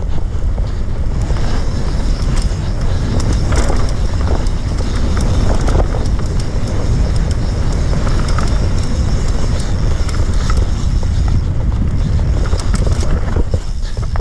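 Mountain bike descending a dirt trail at speed: wind buffeting the microphone, tyres rolling over dirt and rocks, and frequent rattles and knocks from the bike.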